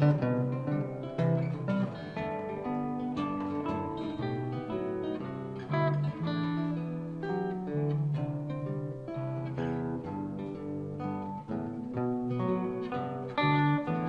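A small band playing an instrumental passage on acoustic guitar, electric guitar and acoustic bass guitar, with many quick picked notes over a held bass line and no singing.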